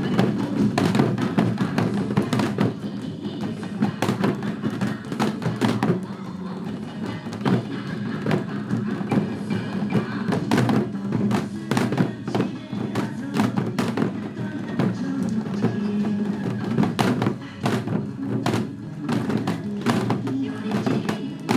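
Several janggu (Korean hourglass drums) struck in time together over a recorded trot song, with sharp drum hits throughout.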